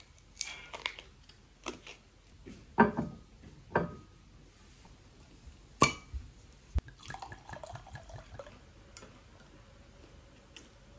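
A glass wine bottle being handled and opened at a glass-topped table: a series of sharp clinks and knocks, the loudest about three and six seconds in, then a short soft pour of wine into a glass.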